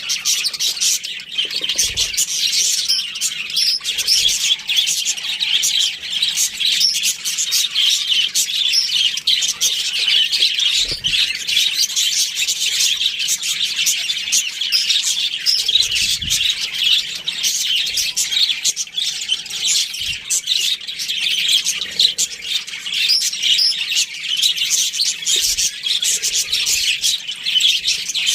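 A flock of budgerigars chirping and chattering without pause, the calls overlapping densely, with many short sharp clicks mixed in.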